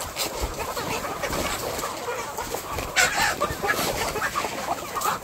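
A crowded flock of chickens clucking over one another, with a louder burst about three seconds in.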